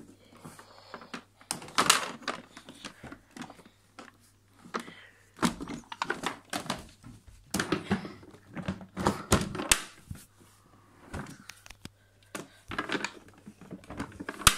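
Handling noise: irregular clicks, knocks and rustles as objects and the phone are moved about, loudest about two seconds in and between about five and ten seconds in.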